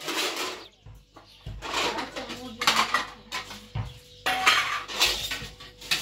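Plates and a metal cooking pot being handled, clattering and clinking in a series of irregular knocks.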